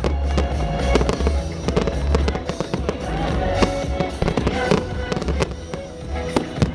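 Fireworks bursting and crackling in quick succession, many sharp bangs and crackles throughout, over loud music with a heavy bass played through loudspeakers.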